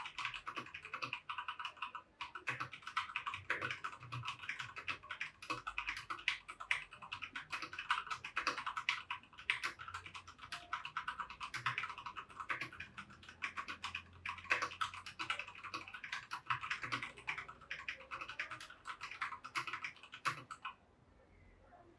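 Fast typing on a Keychron K2 V2 wireless mechanical keyboard: a dense, continuous run of key clicks that stops abruptly about a second before the end.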